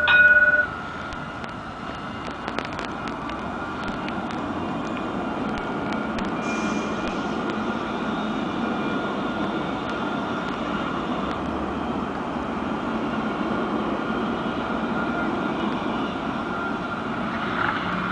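Alstom Citadis tram rolling past on its rails: a steady rumble, with a high whine, that swells through the middle as it passes. At the very start a loud horn note sounds briefly and stops.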